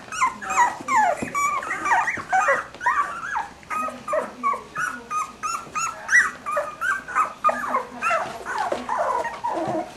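A litter of three-week-old Cavalier King Charles Spaniel puppies crying. Many short, high-pitched cries, several a second and often overlapping, mostly falling in pitch.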